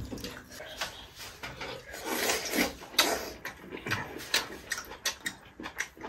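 Mouth sounds of eating braised meat: wet chewing and lip-smacking, an irregular run of short smacks and clicks.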